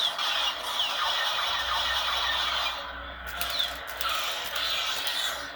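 Lightsaber hilt's sound board playing the 'Serenity' sound font through its small speaker: a steady hissing blade hum with a few short swishing glides. It drops away near the end.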